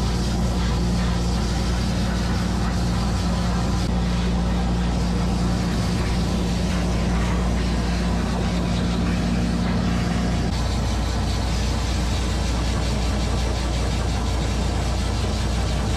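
Pet grooming dryer running steadily, air rushing through its hose over a low motor hum. A low tone in the hum drops out about ten seconds in.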